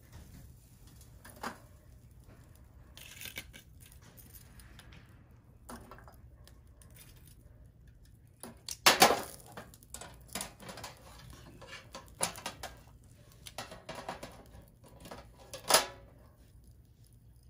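Metal clinks and clatter of a wire grill grate and metal tongs against a small tin charcoal stove, as sparse sharp clicks with a louder burst of clattering about halfway through and one more sharp clink near the end.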